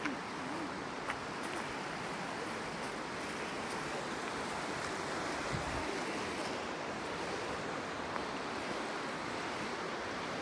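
Steady rush of fast-flowing stream water running over rocks.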